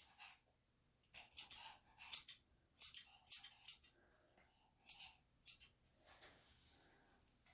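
Grooming scissors snipping a Shih Tzu's coat: about seven short, crisp snips at an uneven pace.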